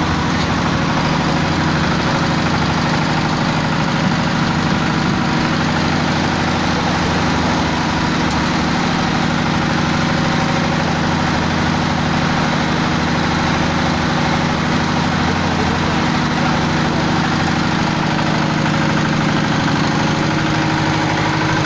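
Engine of a fish-feed pellet-making machine running steadily, a constant mechanical hum with no change in speed.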